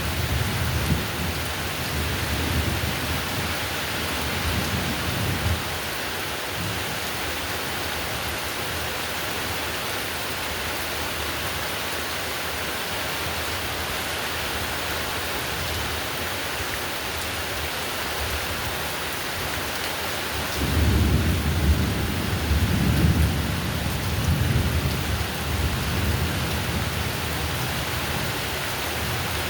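Heavy rain falling steadily, with a low roll of thunder in the first few seconds and a louder, longer roll of thunder about two-thirds of the way through.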